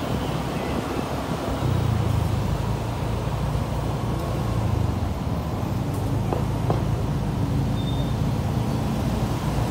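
City street traffic heard from among the motorbikes: a close small engine running steadily with a low hum, over the mixed engine and tyre noise of scooters and cars.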